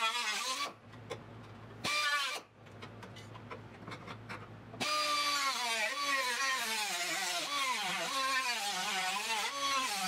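Cutoff wheel cutting through the car body's sheet steel, its whine wavering up and down in pitch as the disc is loaded. It stops about a second in, runs again briefly around two seconds, then starts once more about five seconds in and keeps cutting.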